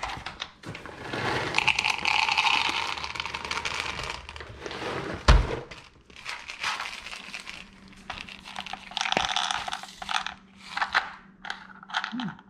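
Dry dog kibble rattling and clattering as it is scooped by hand from a plastic bowl into a plastic measuring cup, in several bursts, with one sharp knock about five seconds in.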